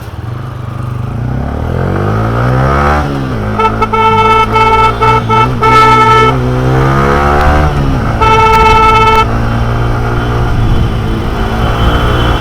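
Motorcycle engine accelerating: its pitch climbs, drops sharply, then climbs and drops again, as at gear changes. A vehicle horn honks twice over it, the first time for about two and a half seconds and the second more briefly.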